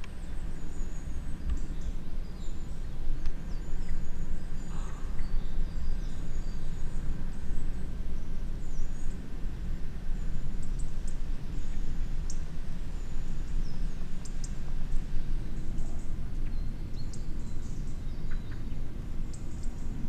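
Outdoor forest ambience: a steady low rumble throughout, with faint, scattered high chirps of small birds.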